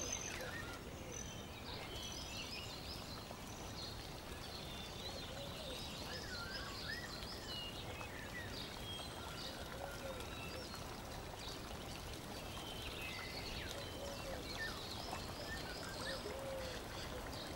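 Many small birds chirping and twittering, with short trills and quick rising and falling calls, over a steady rushing hiss like running water.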